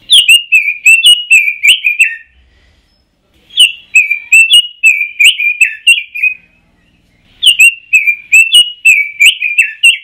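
Red-billed leiothrix (Pekin robin) singing: three fluty, warbling phrases of about eight quick down-slurred notes each, with short pauses between them.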